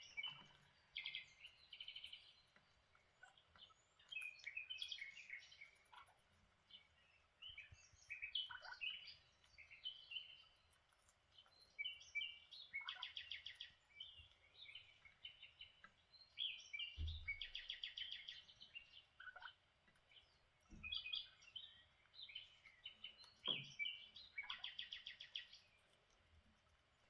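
Lineolated parakeets chirping and chattering quietly in short bursts of high chirps, with several quick buzzy trills. A few soft low thumps come through in the second half.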